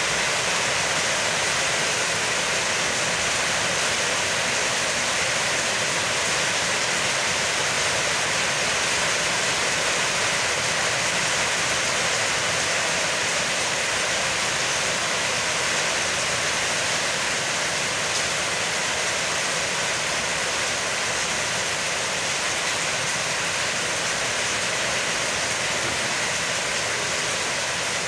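Heavy rain falling, a loud, steady hiss that does not let up.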